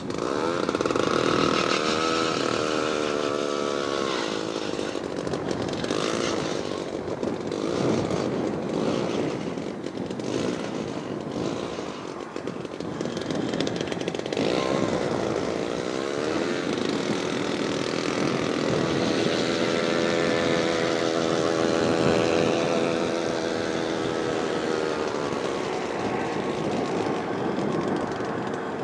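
A small gasoline engine running, its pitch rising and falling as it revs up and down several times.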